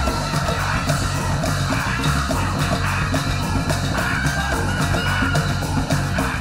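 Loud heavy rock song with fast, dense drumming and a voice yelling over the band.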